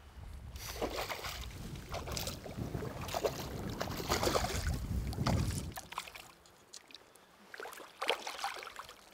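Repeated water splashing as a hooked Arctic char thrashes at the surface of shallow water while being landed by hand. The splashing eases about six seconds in, with one more short splash near the end.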